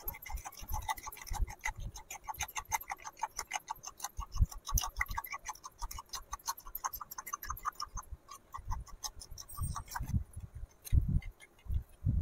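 Tiny metal utensil beating egg and sugar in a small terracotta bowl: quick, even clinking strokes against the clay, several a second. The clinks thin out near the end, with a few dull knocks.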